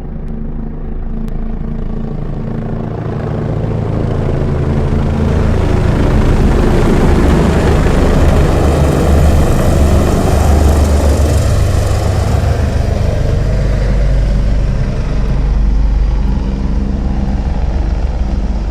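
Helicopters flying in, their rotors chopping with a rapid low beat that grows louder as they close in and pass overhead. The sound is loudest around the middle and eases off a little near the end.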